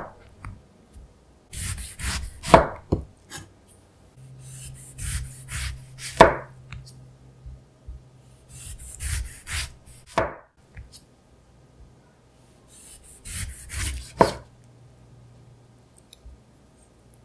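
Chef's knife slicing a whole-peel orange into thin rounds on a wooden cutting board: a short rasping saw through the rind for each slice, ending in a sharp knock as the blade meets the board, about every four seconds.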